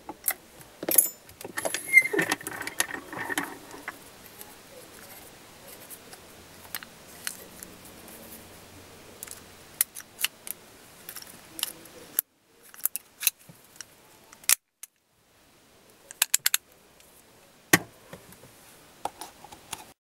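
Lock pick and tension tool being worked in the keyway of a Master Lock padlock during single-pin picking: small metallic clicks, ticks and scrapes, with a busier spell of clicking and rattling in the first few seconds.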